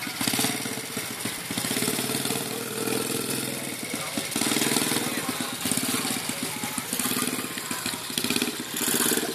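Small ATV (quad bike) engine running at low speed, its level and pitch swelling and dipping with the throttle.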